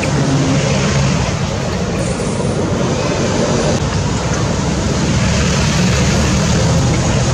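Steady engine noise of motor-vehicle traffic, a low hum under a continuous rushing noise.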